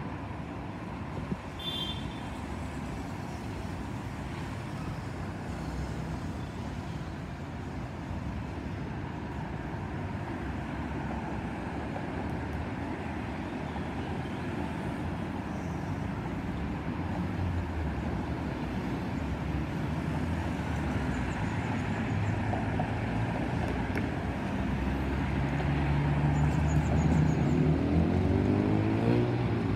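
Street traffic noise with the low, steady drone of a Lockheed C-130H Hercules's four T56 turboprop engines as the aircraft approaches, growing louder through the second half.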